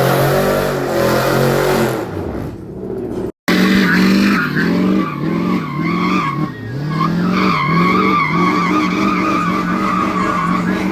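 A truck doing a burnout: its engine revving hard, the pitch rising and dipping again and again, over a steady tire squeal. The sound cuts out for a moment about three and a half seconds in.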